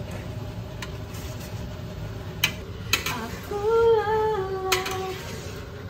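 A woman humming a few held notes, starting about three and a half seconds in, over a steady low rumble. A few sharp clicks of the metal spatula knocking against the wok as she stirs.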